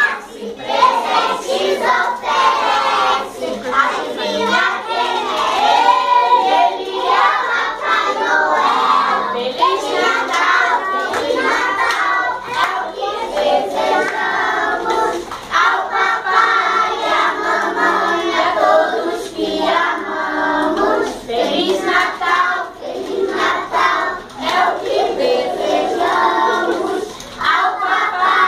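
A group of young children singing together, with hand claps mixed in.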